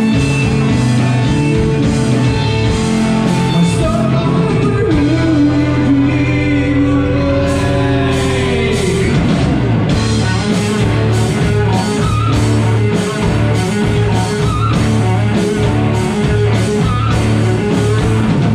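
Live heavy rock band playing: distorted electric guitars, bass and drum kit under a singer's long held notes. About halfway through the singing drops away and the drums keep a steady beat under the guitars.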